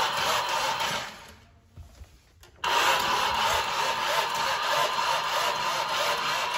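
Road Rippers Snake Bite toy monster truck playing a recorded engine-running sound effect through its small built-in speaker. The sound fades out about a second in and cuts back in abruptly about two and a half seconds in.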